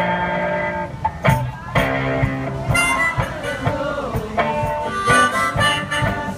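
One-man band playing blues-style harmonica over guitar, long held harmonica notes changing every second or so, with frequent percussive hits keeping the beat.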